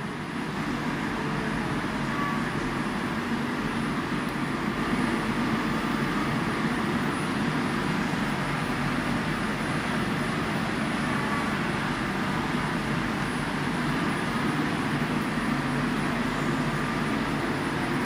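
Steady running noise of a powered-up Gildemeister CTX 420 linear CNC lathe: a dense, even hum and whir that rises slightly just after the start, then holds level.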